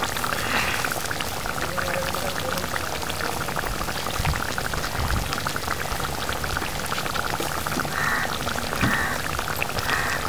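Food cooking in a pan: a steady fine crackle over a hiss, like gravy bubbling and spitting on the stove.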